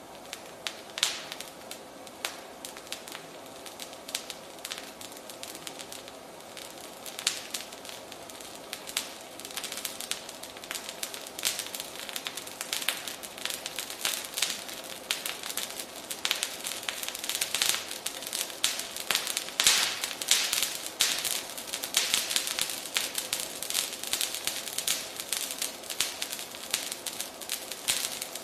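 Potassium permanganate and glycerine burning with iron powder: crackling and popping, a few separate pops at first, then a dense, rapid crackle that builds up and grows louder about a third of the way in.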